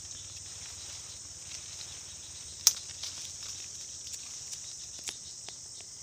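Steady high-pitched insect chorus of forest insects, with one sharp click about two and a half seconds in and a few lighter ticks near the end.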